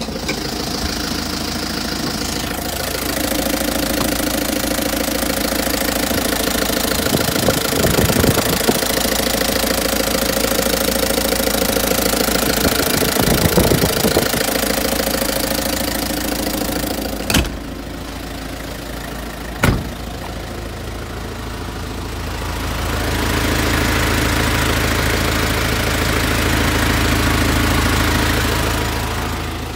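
Isuzu Elf truck engine idling steadily, heard up close in the engine bay, with two sharp clicks in the middle and a louder stretch in the last several seconds.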